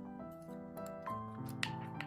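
Background music with a gentle piano-like melody, with a couple of sharp clicks near the end.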